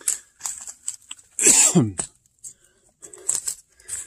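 A man's short, breathy grunt falling in pitch, about a second and a half in, from the effort of climbing a steep slope. Around it are scattered scuffs and crunches of footsteps on dry leaves and rock.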